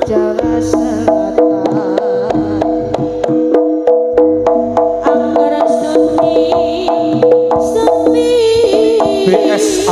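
East Javanese jaranan gamelan music played live through a loud sound system: quick, even percussion strokes, about four a second, under sustained pitched melody notes, with a wavering held tone near the end.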